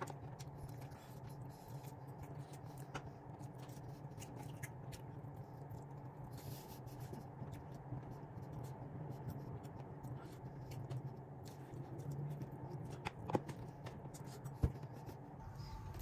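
Steady low hum of a small room, with a few scattered light clicks and taps and two sharper clicks near the end.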